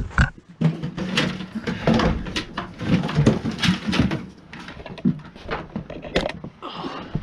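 Repeated knocks, bumps and clatter of objects being moved about while someone rummages for a bucket.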